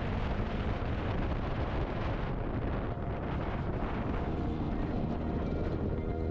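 Motorcycle engine running while riding, under heavy wind rush on the microphone.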